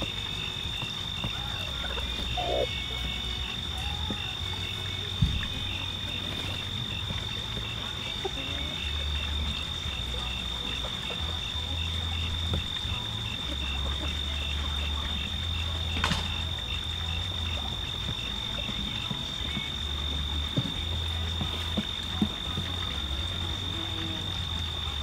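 Outdoor chorus of insects and frogs: a steady high-pitched drone with a rapid pulsing trill just below it, over a faint uneven low rumble and a few soft clicks.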